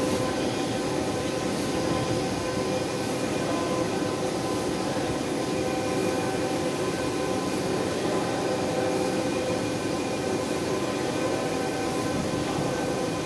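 Automatic box packing machine running steadily: a continuous mechanical hum with faint regular clicks about every one and a half seconds.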